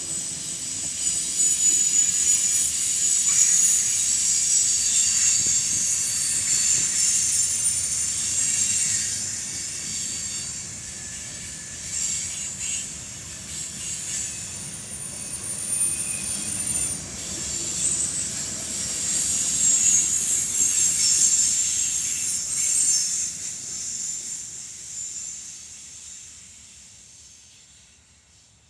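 Freight train cars rolling past on steel wheels, with a high wheel squeal in the middle stretch. The sound fades away steadily to near silence near the end as the last cars pass.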